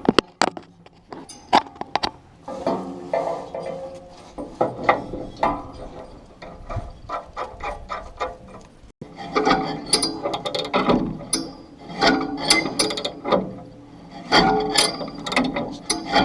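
Quick metallic clicking, ratcheting and clinking of hand tools and parts being worked on a John Deere 535 baler's pickup while its teeth are replaced. There is a brief break about nine seconds in.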